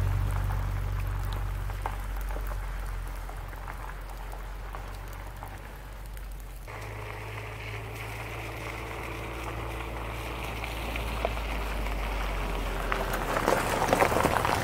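Subaru Outback driving on a wet gravel track in the rain. Its engine fades as it moves away, then grows louder as it comes back and passes close, with tyres crunching on the gravel near the end, over a steady patter of rain.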